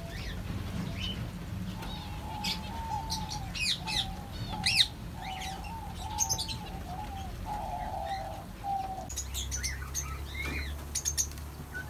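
Aviary birds at feeding: zebra finches giving short chirping calls throughout, and diamond doves feeding, with a run of low repeated cooing notes from about two to nine seconds in, and wings fluttering as birds land and shift about.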